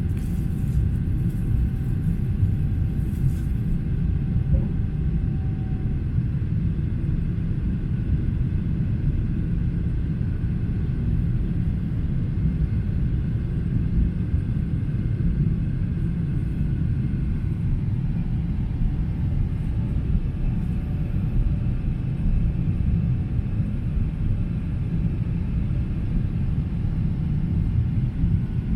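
Steady low rumble of a Boeing 777-300ER's engines and airflow heard from inside the passenger cabin, even and unchanging throughout.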